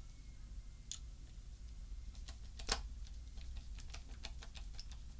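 Small, hard clicks of a screwdriver and small parts being handled. After a couple of scattered clicks there is one louder click about two and a half seconds in, then a quick, irregular run of light ticks.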